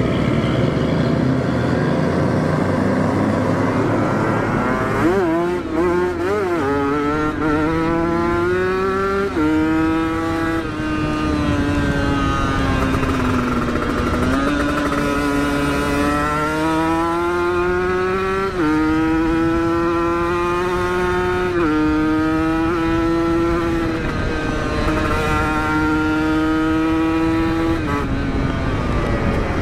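Kawasaki Ninja motorcycle with an Aitech aftermarket exhaust being ridden hard. After a few seconds of rushing wind noise, the engine pitch climbs under full throttle and drops sharply at each upshift, several times over, with one easing-off and pull back up in the middle.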